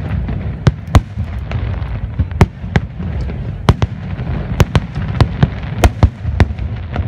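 Aerial firework shells bursting in a display: a quick, irregular series of sharp bangs over a continuous low rumble.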